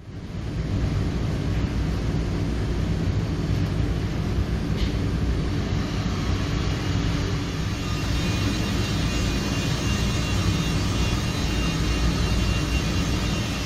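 A steady mechanical drone with a low hum underneath, starting abruptly and holding even throughout.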